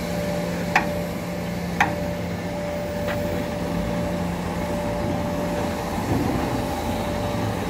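A heavy truck's diesel engine idling steadily. Three sharp metallic clinks sound about a second apart in the first three seconds.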